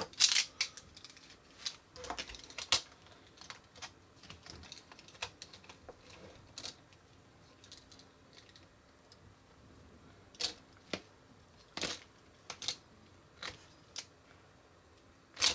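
Small hard plastic game pieces of a miniature Mouse Trap toy clicking and tapping together as they are stacked by hand and the plastic trap cage is set on top. The clicks come irregularly, busiest in the first few seconds and again from about ten seconds in.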